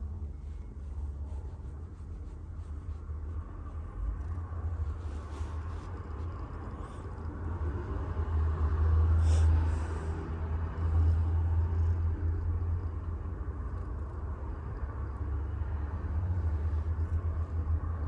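Cat purring close to the microphone: a steady low rumble that swells and fades, loudest in the middle, with a little soft rustling.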